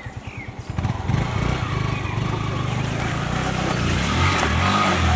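Motorcycle engine ticking over with an even low putter, then pulling away about a second in, louder, its pitch rising and falling as it is ridden.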